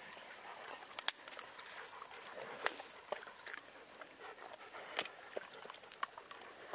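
Dog chewing and gnawing at a dry stick, with sharp cracks now and then, the loudest about a second in, near the middle, and about five seconds in.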